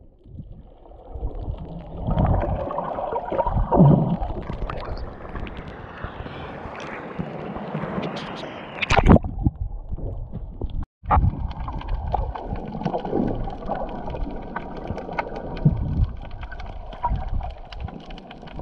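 Muffled underwater water rush and gurgling around a submerged action camera as a swimmer strokes through the water, with a few sharp knocks. The sound cuts out for an instant about two-thirds of the way through.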